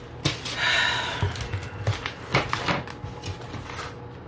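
Bubble wrap packaging crinkling and rustling as it is pulled off by hand: a longer crinkle about half a second in, then a series of sharp clicks and taps as the wrapped items are handled.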